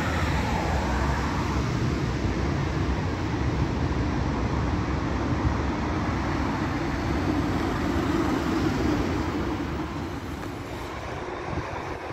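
Tram passing by: a steady running rumble with a low hum that swells and then eases off about ten seconds in.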